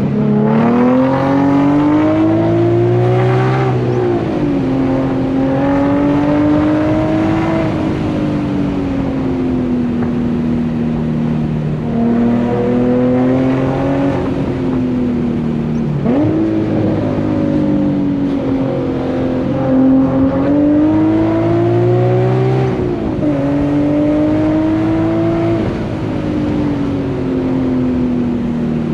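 Infiniti G37's 3.7-litre V6 running through an ISR Single Exit GT exhaust under acceleration while driving. The engine note repeatedly climbs and falls back, dropping suddenly several times at gear changes. The exhaust is one billed as having zero rasp.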